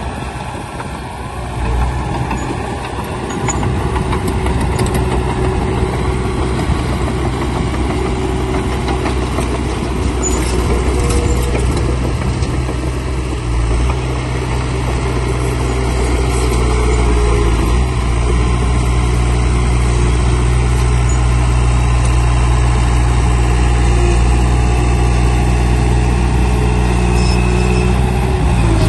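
Diesel engine of heavy earthmoving machinery running steadily, its low pitch shifting about 14 seconds in.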